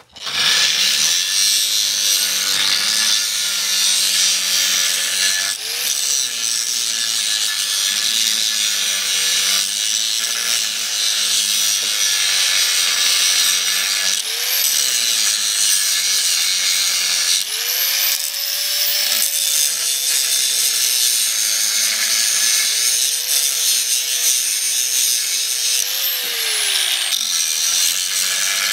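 Angle grinder grinding on steel, a continuous loud hiss of abrasion over the motor's running tone. The motor's pitch sags and climbs back several times as the disc is pressed into the work, most clearly about 6, 14, 18 and 26 seconds in.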